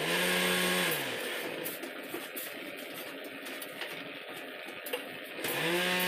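An electric machine motor hums, winds down and stops about a second in, then spins back up to a steady hum near the end. In between, shovels scrape and crunch in crushed stone.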